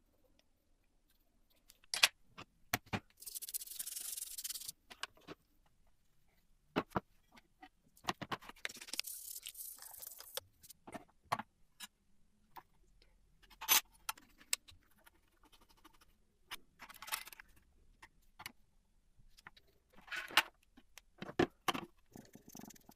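Hand work on a vintage typewriter's small metal parts: scattered sharp clicks and light knocks. Two spells of steady hiss, about three and eight seconds in, last a second and a half to two seconds each.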